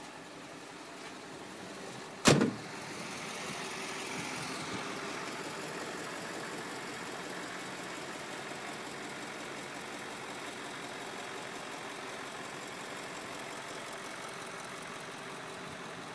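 Volvo FH13 truck's 13-litre straight-six diesel engine idling steadily, with a single sharp, loud thump about two seconds in.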